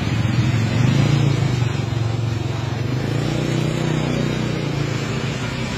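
A motor vehicle engine running close by, a steady low drone that is loudest about a second in and slowly eases off toward the end.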